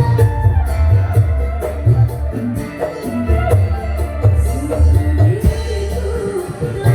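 Music with heavy pulsing bass, a gliding melody and steady tambourine- or shaker-like percussion, played through a sound system driven by an analog mixing desk.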